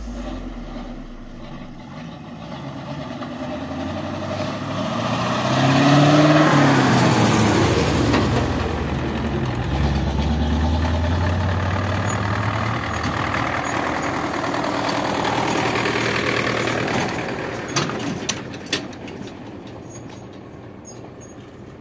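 A dump truck drives past, its engine note rising and then falling as it goes by, followed by a farm tractor's engine approaching and passing. There are a few sharp clicks near the end.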